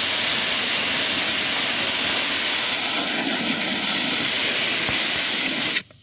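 Garden-hose spray nozzle spraying water into the plastic wash tub of a portable twin-tub washing machine, filling it. It makes a steady hiss that stops abruptly near the end as the nozzle is shut off.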